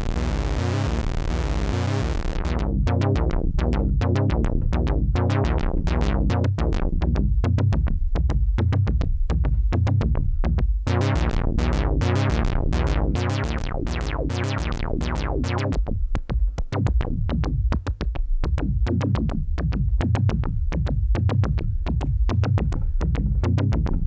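ARP Avatar analog synthesizer playing a fast, repeating sequence of short notes over a pulsing bass, with the filter envelope sweeping the cutoff down on each note to give a plucky, percussive tone. The sound is brighter and denser for about the first two seconds before the short notes take over.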